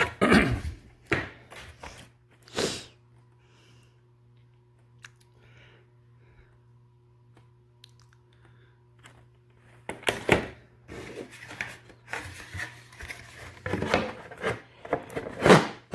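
Model train packaging being handled: clear plastic display cases and a cardboard box rustle, scrape and clack. There is a lull in the middle where only a faint steady hum is left, then dense handling noise again, with the loudest clacks about ten seconds in and near the end.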